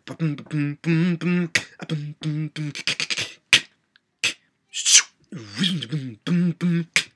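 A man beatboxing: short voiced bass notes at a steady pitch, repeated in an even rhythm. Near the middle there is a brief pause filled with sharp mouth clicks and a hissing snare-like sound, then a note that slides down in pitch before the rhythm starts again.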